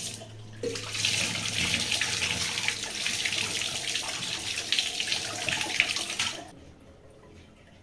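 Water running from a kitchen tap and splashing in a vessel as rice is rinsed; it starts about half a second in and stops about six and a half seconds in.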